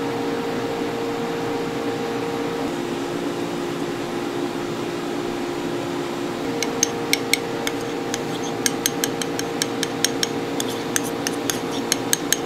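Steady hum of kitchen machinery with a few held tones, joined from about six and a half seconds in by a run of irregular sharp metallic clinks, like dishes or utensils knocking together.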